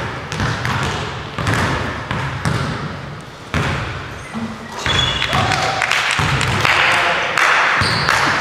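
A basketball bouncing on a hardwood gym floor at the free-throw line, each bounce a sharp thud with echo from the hall. In the second half, voices and court noise grow louder.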